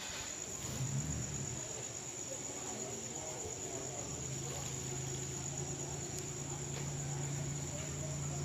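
Insects chirring steadily on one high note, with a low steady hum coming in about halfway through.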